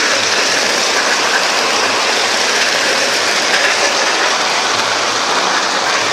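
Heavy rain mixed with hail pelting down in a loud, dense, unbroken hiss, with faint low thuds now and then beneath it.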